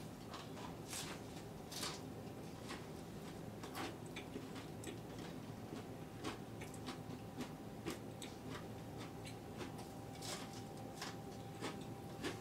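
Soft, irregular clicks and taps of bacon pancakes being lifted and handled on a wooden cutting board, over a faint steady hum.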